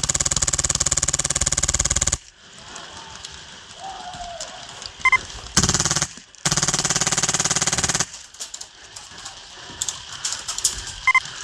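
Polarstar HPA-driven Stoner 96 airsoft LMG firing full-auto: a burst that stops about two seconds in, a short burst near the middle, then a second longer burst of about a second and a half.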